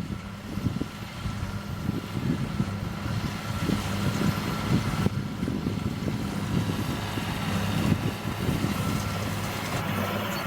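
John Deere 7820 tractor's six-cylinder diesel running steadily under load while it drives a Massey Ferguson 2270 square baler, with a faint steady whine over the engine.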